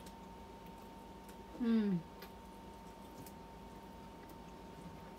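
Faint small clicks of fingers pulling apart pieces of braised pork at the table, with one brief vocal sound falling in pitch about a second and a half in, over a faint steady hum.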